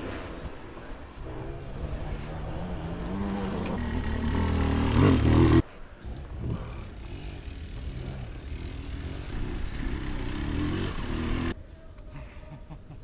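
Enduro dirt bike engines revving, the first one rising in pitch and loudness until it cuts off suddenly about five and a half seconds in; another engine then runs, rising and falling, before a sudden drop to a quieter background near the end.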